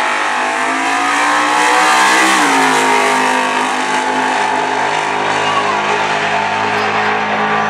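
Drag-racing Chevrolet Camaro launching hard in a wheelie and accelerating down the strip at full throttle. The engine note rises for about two and a half seconds, drops at a gear change, then holds steady.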